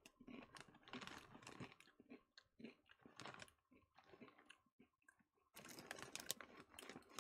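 Faint, irregular crinkling and crunching as a bag of Flamin' Hot Fritos corn chips is handled and chips are picked out, getting busier near the end.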